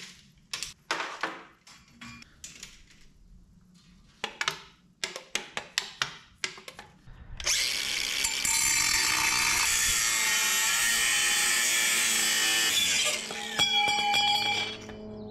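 A string of sharp metal clinks and knocks from exhaust parts being handled, then, about halfway through, an angle grinder with a cut-off wheel cutting through stainless steel exhaust tubing: a loud, steady whining grind lasting about five seconds that stops abruptly.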